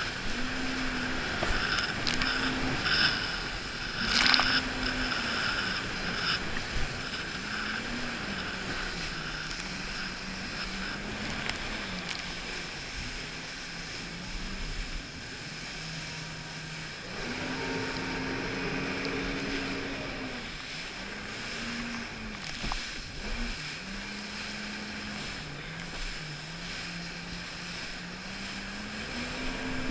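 Jet ski engine running, its pitch rising and falling as the throttle is opened and eased, over rushing water and wind on the microphone. A brief loud hit about four seconds in.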